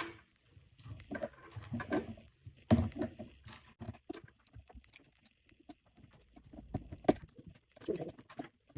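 Light, irregular clicks and taps of a small tool working at an iPhone 5's internals to pry its ribbon-cable connectors loose, with a few sharper knocks and some brief muttered speech.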